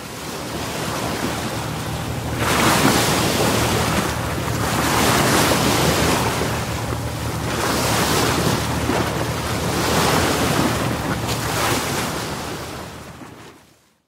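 Sea surf breaking on a beach, the wash swelling and easing about every two to three seconds over a steady low rumble of wind. It fades in at the start and fades out near the end.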